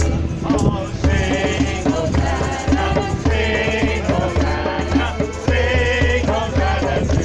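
Upbeat worship-chorus music with a steady bass beat about twice a second, a wavering melody line and rattling hand percussion.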